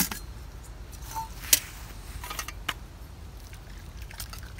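Sharp metal clinks and taps as the lid is handled and lifted off a steel camp cook pot, the loudest clink about a second and a half in.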